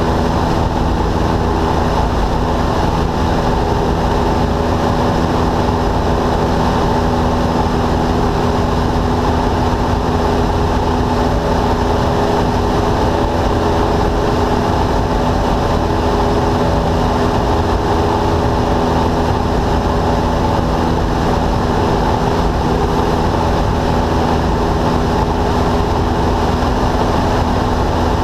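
Single-engine Cessna's piston engine and propeller running steadily in flight, heard loud inside the cabin as an even drone with a constant pitch.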